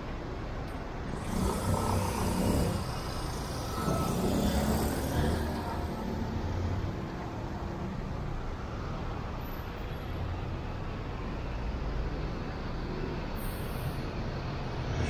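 City street traffic: motor vehicles driving past, with two louder passes about a second and four seconds in.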